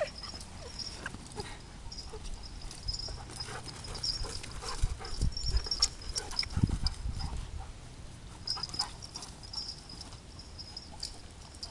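A large black dog at play with a person on grass: footfalls and scuffling as they run about, along with the dog's own close-up noises, loudest in the middle. A faint high chirring comes and goes behind it.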